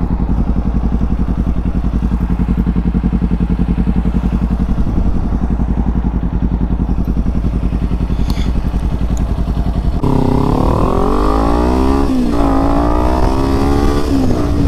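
Motorcycle engine idling with a steady, fast pulse, then about ten seconds in it revs up as the bike pulls away, the pitch rising, dropping at a gear change about two seconds later and rising again.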